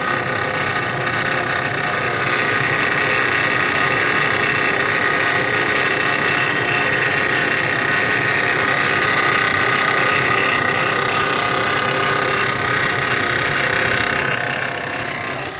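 2016 Dodge Grand Caravan's 3.6-litre Pentastar V6 engine running with a steady mechanical noise and a high whine that grows louder about two seconds in. The owner takes it for the timing chain or a variable valve timing cam phaser, not a pulley or the alternator bearing.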